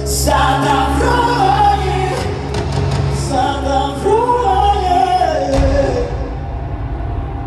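Live concert music: a woman singing a wavering melody into a microphone over amplified backing with a steady deep bass note. About six seconds in, the voice stops and a deep low rumble takes over.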